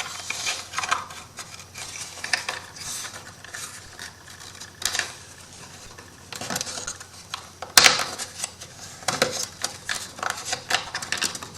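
Thin MDF wood pieces clicking and knocking against each other as they are handled and their tabs pushed into slots, with a sharper knock about eight seconds in.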